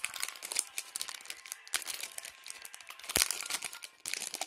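Plastic wrapping and foil booster-pack packaging crinkling as they are handled, with one sharp knock about three seconds in.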